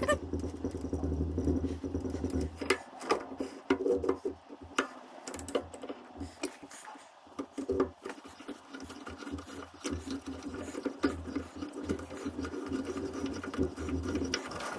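A metalworking machine tool running with a rhythmic mechanical clatter and many small ticks, its low motor hum starting and stopping several times.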